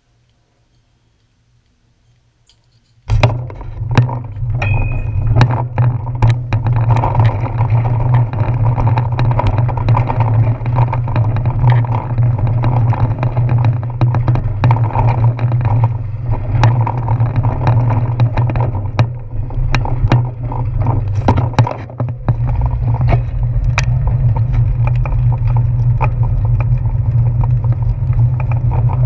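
Bicycle being ridden, heard from its handlebars: a loud, steady low rumble with frequent knocks and rattles as the bike rolls over bumps. It starts suddenly about three seconds in, after near silence.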